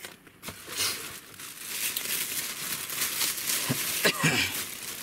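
Clear plastic packaging bag crinkling and rustling as it is handled, with a few light knocks near the end.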